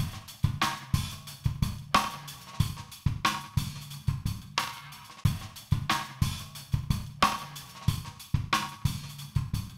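Music with a drum kit playing a steady beat, with cymbal and hi-hat hits over a low bass line.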